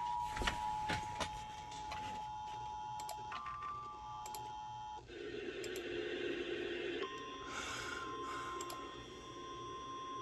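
Emergency Alert System attention signal for a tornado warning: a steady two-tone alarm that cuts off about five seconds in, then a short stretch of hiss, then a single steady alert tone from about seven seconds in. Scattered sharp clicks sound throughout.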